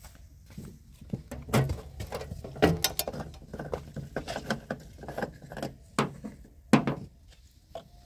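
Irregular clicks and knocks of hands at work: a tractor's plastic fuel-tank filler cap being unscrewed and its hinged cover handled.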